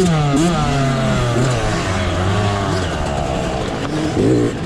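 Yamaha YZ65 two-stroke dirt bike engine being ridden hard. A burst of throttle at the start, then the pitch falls away over the next second or so. It runs lower for a while, with a couple of quick throttle blips near the end.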